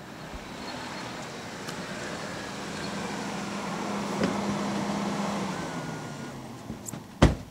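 A Chrysler sedan pulling into a parking space: engine and tyre noise swell as it comes in and fade as it stops. A single sharp clunk near the end as a car door is opened.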